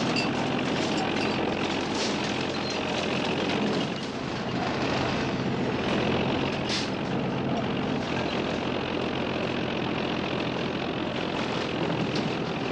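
Heavy diesel machinery running steadily: garbage trucks tipping their loads and a loader working the refuse. A few short hisses of the kind air brakes or hydraulics make cut through, about two seconds in, around the middle and near the end.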